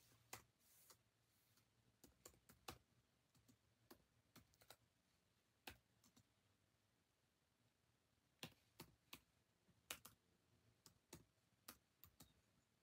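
Near silence with faint, scattered clicks and taps, some coming in quick runs of two or three.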